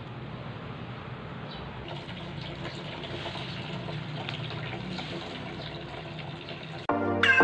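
Steady hiss with small crackles and pops from a charcoal grill, whole eggplants roasting on the grate over glowing coals. Loud music with a beat cuts in near the end.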